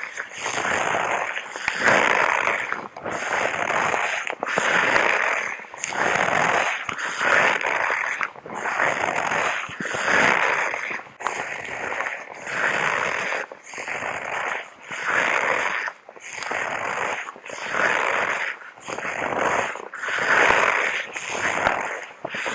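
Loud, steady breathing by a person in a hazmat suit, drawing in and letting out air in slow alternating whooshes, about one breath sound a second.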